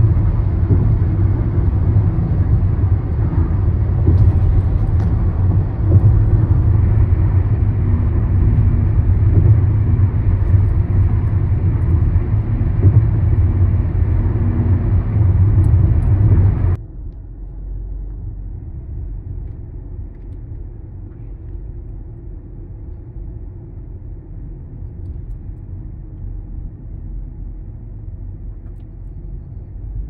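Road noise inside a moving car: a steady low rumble that drops suddenly to a quieter, steady rumble a little past halfway through.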